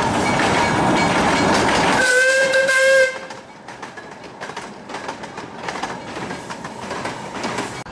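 Miniature ride-on steam train passing close with loud rushing running noise, then giving one steady whistle blast about two seconds in that lasts about a second. After it the open passenger cars roll by more quietly, their wheels clicking over the rail joints.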